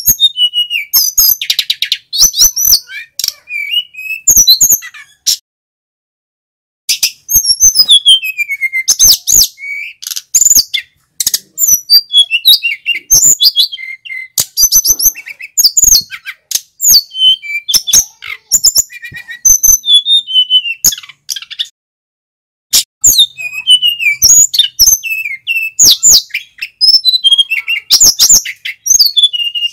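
Male sikatan gunung (a mountain flycatcher) singing loudly in rapid phrases of high chirps, trills and whistled up-and-down glides, with two brief pauses.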